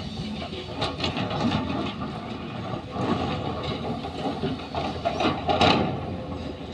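Heavy construction machinery running at a roadworks site, a steady engine noise with irregular metallic knocks and clatter, the loudest clatter a little past halfway.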